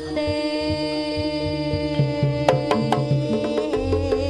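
Javanese jaranan gamelan music: a slompret (Javanese shawm) holding a steady note over regular kendang drum strokes. About halfway through a run of sharp struck percussion joins in, and a deep drum comes in near the end.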